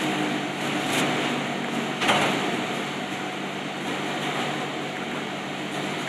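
Steady ventilation hum, with plastic cling film crinkling as it is wrapped tightly by hand around a meat roll; two sharper crackles of the film about one and two seconds in.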